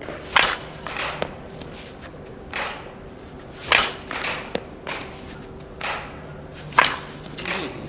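Baseball bat hitting tossed balls in toss batting: three sharp cracks about three seconds apart, each with softer knocks close after it.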